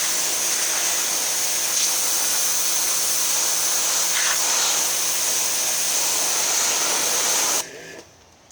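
Bloom NXG2200 2200 psi electric pressure washer spraying: a steady hiss from the water jet over the motor's hum. The sound cuts off suddenly near the end as the trigger is released, because the motor runs only while the trigger is held.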